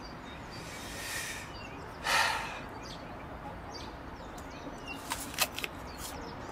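A man's audible breathing: a soft breath in about a second in, then a louder short breath out through the nose or mouth, like a sigh, about two seconds in. Two short clicks come near the end over a quiet outdoor background.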